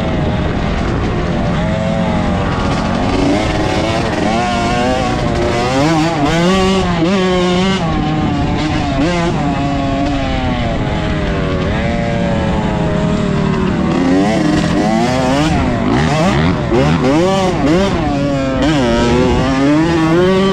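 Dirt bike engine revving up and down repeatedly as it is ridden hard, the pitch rising and falling with each burst of throttle and gear change.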